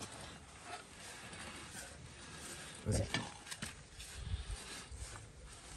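Hand work on metal buggy parts: scattered clinks and knocks of tools and fittings, loudest about three seconds in, with a few dull thuds after.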